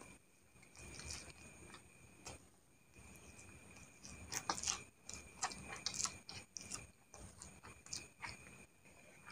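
A person eating a mouthful of fried instant noodles close to the microphone: faint chewing and slurping with irregular wet mouth clicks, busiest about four to six seconds in.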